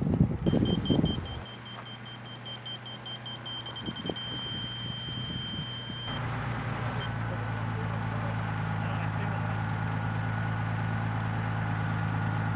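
Rapid, high electronic beeping that runs into one steady beep and stops about six seconds in, over a steady low motor drone that carries on and grows a little louder after about seven seconds.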